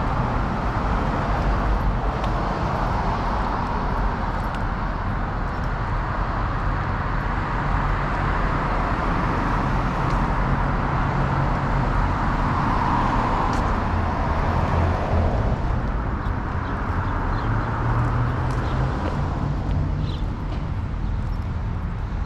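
Cars passing on a town street: tyre and engine noise swelling and fading as several vehicles go by, the loudest pass about two-thirds of the way through, over a steady low rumble.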